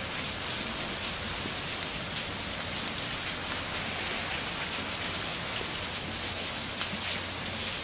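Steady rain falling, an even hiss with no breaks, over a faint low hum.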